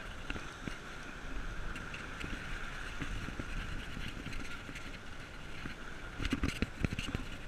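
Sportfishing boat's engines running at low speed with water washing along the hull, a steady low rumble and hiss. A few short knocks come about six to seven seconds in.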